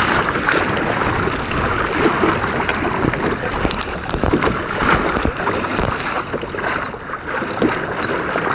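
Choppy water splashing and lapping against the hull of a sailing kayak, with wind rumbling on the microphone and a few small knocks.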